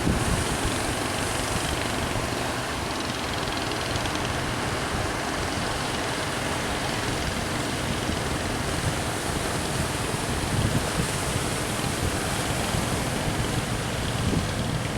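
Sea surf breaking on the shore, a steady rush of water noise, with wind buffeting the microphone in low rumbling gusts.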